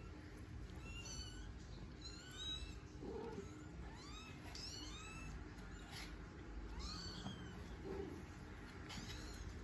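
Very young kittens mewing: thin, high-pitched, repeated mews that rise and fall, coming every half second to a second, faint.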